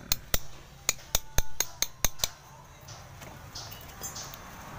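Mallet striking a chisel to carve the wood of a Premna microphylla bonsai stump: quick sharp knocks, about four a second, stopping a little over two seconds in.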